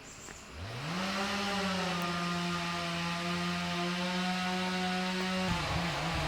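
Two-stroke chainsaw revving from idle to full throttle about half a second in and holding a steady high pitch. From about five and a half seconds its pitch drops and wavers as the chain loads up cutting into wood.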